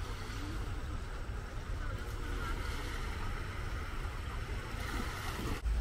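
Lakeshore ambience: small waves washing onto a sandy beach under steady wind rumble on the microphone, the rumble growing stronger near the end.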